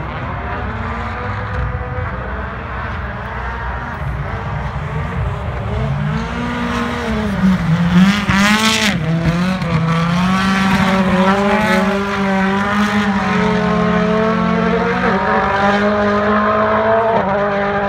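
Rally car engine revving hard on snow, its pitch climbing and dropping back with each gear change, loudest as it passes about eight seconds in.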